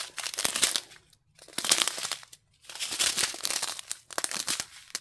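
Small plastic bags of diamond-painting drills crinkling as they are handled, in three or four bursts with short pauses between.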